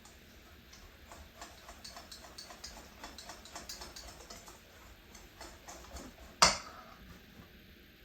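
Whisk beating crepe batter in a bowl, its wires clicking against the side about four or five times a second. About six and a half seconds in comes one much louder sharp knock.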